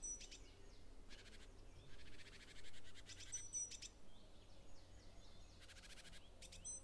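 Faint forest birdsong: a short, rapid trill repeating every two to three seconds, with a few quieter chirps between.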